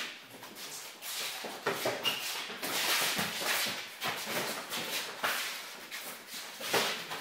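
Two people sparring in boxing gloves: shuffling footsteps on a hard floor and scattered glove hits.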